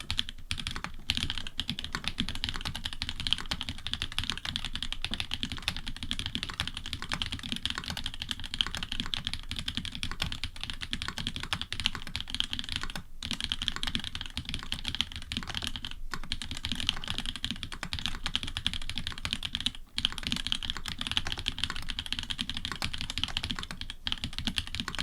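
Fast, continuous typing on an Orion v2.5 custom mechanical keyboard with hybrid switches (Cherry bottom housings, Cream top housings and stems), FR4 plate, plate foam and GMK keycaps. Brief pauses come around 13, 16 and 20 seconds in.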